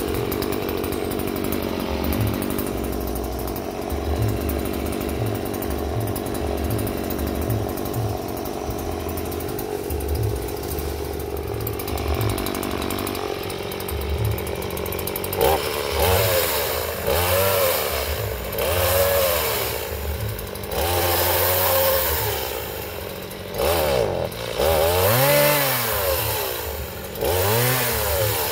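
Two-stroke Stihl chainsaw idling steadily for about fifteen seconds, then revved up and down again and again, each rev rising and falling in pitch, as it cuts into the wood of a felled tree.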